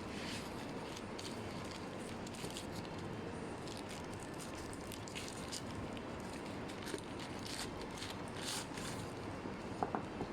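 Scattered light clicks and rustles of a parcel's packaging being handled and opened, over a steady background hiss, with a few sharper clicks near the end.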